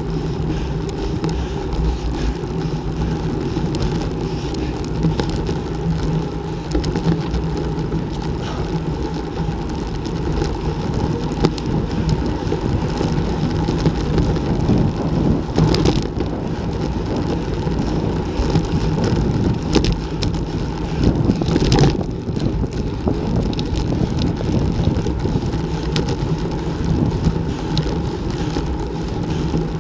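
Wind rushing over the microphone of a handlebar-mounted action camera on a road bike riding at about 30 km/h, mixed with tyre and road rumble and scattered small rattles and clicks. The noise swells briefly about 16 and 22 seconds in.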